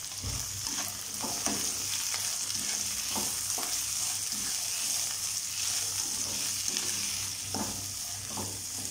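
Cut cluster beans sizzling steadily in hot oil in a non-stick kadai, stirred with a spatula that scrapes and tosses them against the pan in uneven strokes every second or so.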